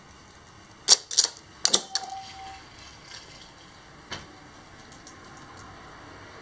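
A quick clicking clatter of something hard on a glazed tile floor, in two short clusters about a second in, then a single click about four seconds in. A brief high tone follows the second cluster.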